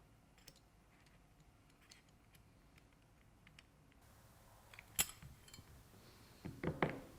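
Faint metal clicks of a blind bearing puller and pin punch being set in a bicycle front hub for bearing removal, with one sharp click about five seconds in and a few short knocks near the end.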